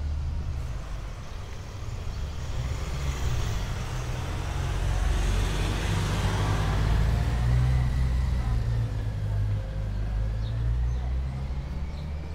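Street traffic: a motor vehicle passes close by, its engine and tyre noise swelling to a peak about halfway through and then easing off, over a steady low rumble.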